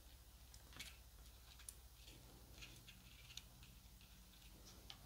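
Near silence, with a few faint, light ticks as a craft pick tool and small die-cut paper pieces are pressed and placed on a card.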